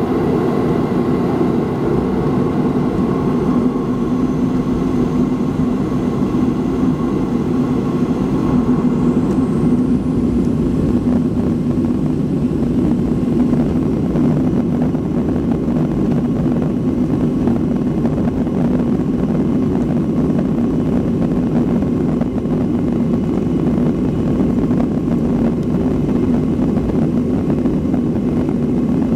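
Boeing 737-500's CFM56-3 jet engines heard inside the cabin over the wing: a steady loud drone with a low hum as the airliner moves onto and along the runway. A faint high whine rises about eight seconds in.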